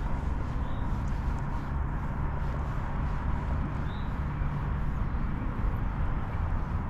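Boat motor running steadily: a low rumble with a faint constant whine.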